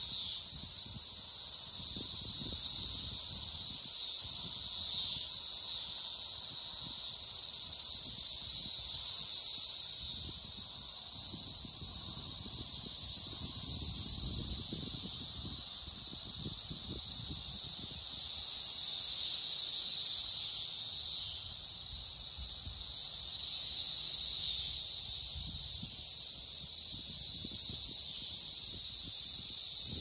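Chorus of Brood XIII periodical cicadas, mostly Magicicada cassini, a steady high-pitched shrill buzz that swells and eases in waves every several seconds.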